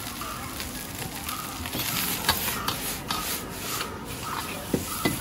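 Metal ladle scraping and stirring in a wok as rice noodles and bean sprouts are stir-fried, over a steady sizzle, with scattered sharp knocks of the ladle on the wok.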